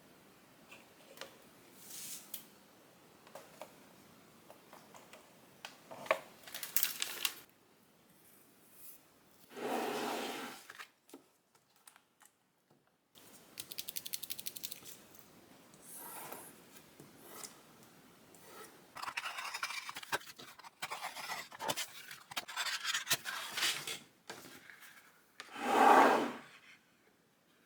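Hands-on craft work noises: irregular rubbing and scraping with short bursts, two louder ones about ten seconds in and near the end, and a quick run of ticks in the middle.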